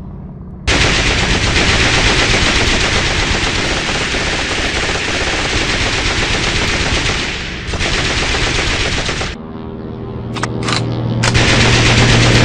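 Machine-gun fire sound effect: sustained rapid fire that starts about half a second in and runs for several seconds. It breaks off about three-quarters of the way through, leaving a steady engine drone with a few short bursts, and then resumes near the end.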